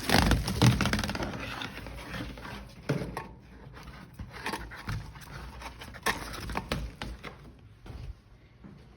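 Clothes dryer starting up and running after a new rear drum bearing and front felt were fitted: the drum turns without the earlier squeal, which the repairer calls much better. It starts loud and settles within a few seconds, with a few scattered knocks.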